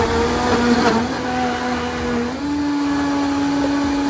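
Vitamix blender motor running at full speed, blending a thick green smoothie of kale, parsley, apple and banana with milk. It runs steadily with a rattle of chunks in the jar over the first second, and the motor's pitch steps up higher about two seconds in.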